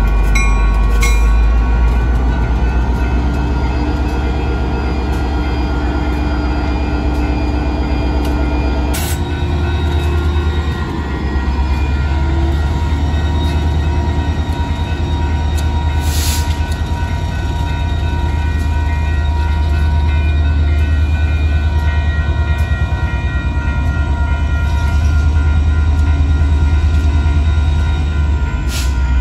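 Reading & Northern diesel freight locomotive rumbling heavily as it moves through a road grade crossing. Several steady ringing tones sound above the engine throughout.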